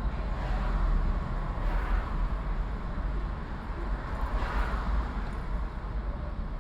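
Street traffic heard from a car driving through the city: a steady low rumble of engine and road noise, with two louder swells about a second and a half in and again about four and a half seconds in.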